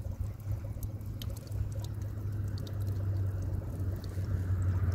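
Water trickling in a thin stream from the spout of a plastic water tank over a gutted goby being rinsed by hand to wash off its slime, with a steady low rumble underneath.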